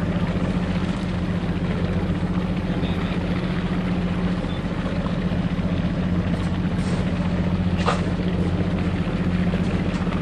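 A boat's engine running steadily, a low even hum under a rushing noise of wind and water. A short click about eight seconds in.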